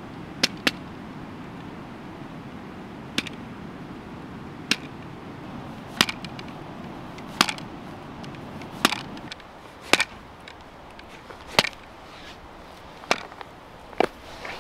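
Small hatchet chopping a beef oxtail into pieces on a wooden stump: eleven sharp chops, the first two close together, then about one every second and a half.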